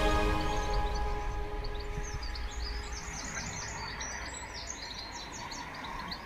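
Background music fading out in the first second, then small songbirds chirping, many short quick notes, over a steady hum of outdoor background noise.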